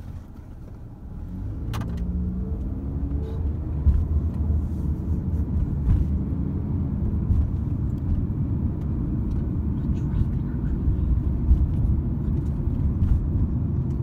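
Car pulling away, its engine rising in pitch over the first few seconds, then a steady low rumble of engine and road noise as it drives on.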